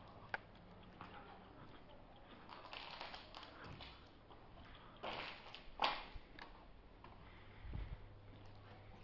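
Faint footsteps scuffing and crunching on a grit-strewn concrete floor, with camera handling noise over a steady low hum. A sharper click comes about six seconds in and a low thud near eight seconds.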